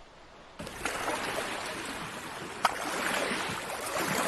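Steady rushing of running water, like a stream, that starts abruptly about half a second in, with one sharp click a little past the middle.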